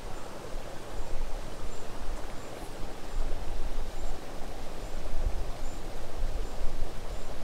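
Outdoor ambience: a steady hiss of moving air or water, with wind rumbling unevenly on the microphone. A faint high tick repeats a little more than once a second.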